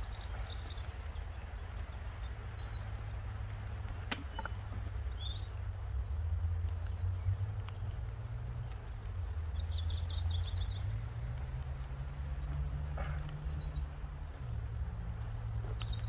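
Small birds chirping on and off over a steady low rumble, with a couple of sharp clicks as the wooden hive frames and boxes are handled.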